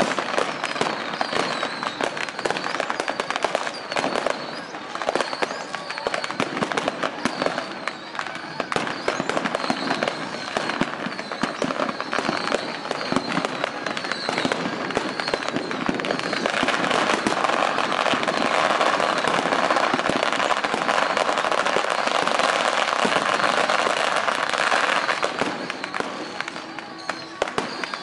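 Strings of firecrackers going off in a continuous rapid crackle of bangs, growing denser and louder a little past halfway and easing off near the end.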